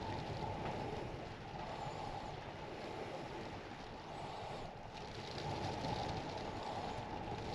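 Strong wind gusting against a truck camper and rocking it, a steady rush that eases slightly about four and a half seconds in and then swells again.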